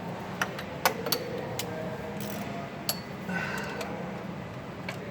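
Sharp metallic clicks and clinks, a couple of them ringing briefly, in the first three seconds, over a steady low hum: hands and tools knocking against metal parts in the engine bay while the drive belt is being fitted.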